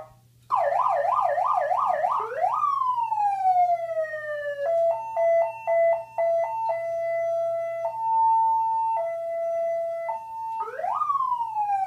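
Electronic siren played through a small PA speaker with two socks stuffed inside to soften it. It cycles through its settings: a fast yelp sweeping up and down, a rise into a slowly falling wail, a two-tone pattern stepping back and forth between two pitches, then another rise and falling wail near the end.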